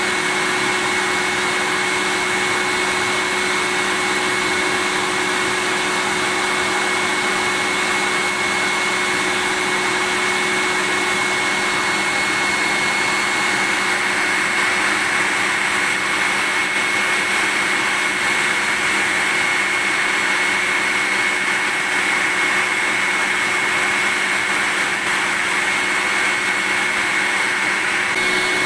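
Vacuum cleaner running steadily: a constant rush of air with a steady high whine, unchanging throughout.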